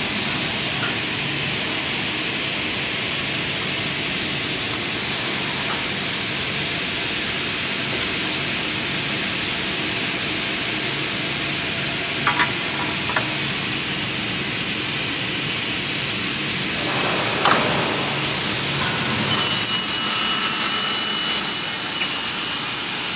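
Double-head aluminium profile cutting saw running with a steady hiss, with a few short clicks past the middle. Near the end the blades cut through the aluminium profile: a loud, high-pitched ringing screech that lasts about three and a half seconds.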